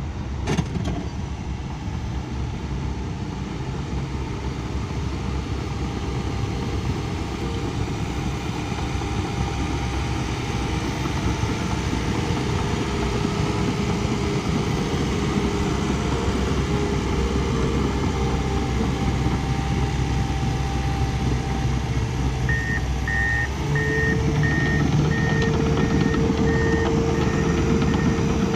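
Diesel earthmoving machine (excavator or bulldozer) running steadily under work. A short knock comes just after the start. Near the end the engine note changes and a backup alarm starts beeping, about one and a half beeps a second, as the machine reverses.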